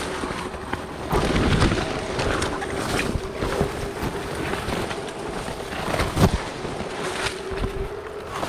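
Wind buffeting the microphone, with leaves and branches rustling and cracking as a climber pushes through cliff-face shrubs, and occasional knocks of hand and gear on rock, the loudest about six seconds in. A steady hum runs underneath.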